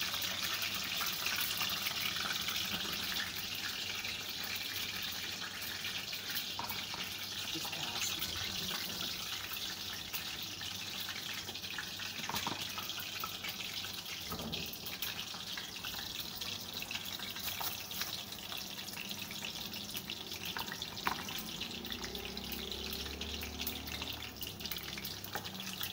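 Besan-battered potato slices deep-frying in hot oil: a steady sizzle with scattered pops and crackles.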